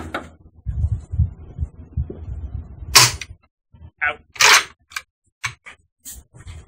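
Several sharp clicks and knocks, the two loudest about three and four and a half seconds in, over low wind rumble on the microphone during the first half.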